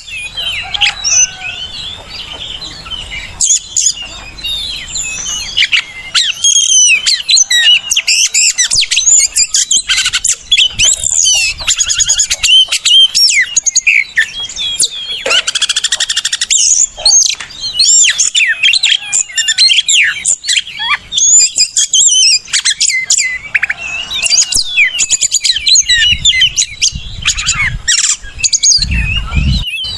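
Oriental magpie-robin singing a fast, continuous song of varied sliding whistles and chirps, with hardly a pause.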